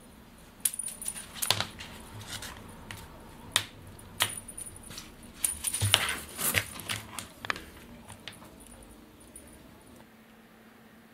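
A string wand cat toy with a small metal piece jingling and clicking in irregular bursts as a cat swats and lunges at it, with soft thumps among them. The jingling stops about eight seconds in.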